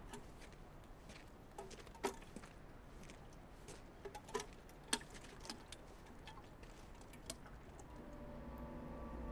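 Scattered soft clicks and taps at irregular intervals. Near the end, steady low sustained tones slowly swell in.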